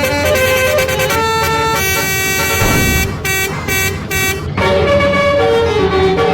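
Bus basuri musical air horn playing a tune in a quick run of stepped notes. A brief break comes about four and a half seconds in, then the notes slide and waver in pitch.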